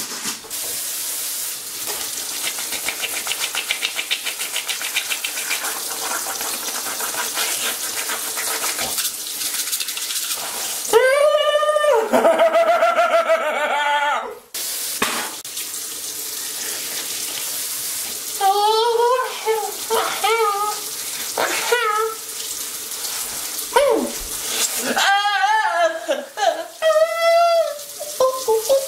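Toothbrush scrubbing over a steady watery hiss, broken three times by loud, wordless vocalising from a man brushing with a mouthful of toothpaste.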